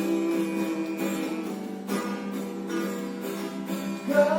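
Ukulele strummed in a steady rhythm between sung lines, with a full tone close to an acoustic guitar's. A man's singing voice comes back in near the end.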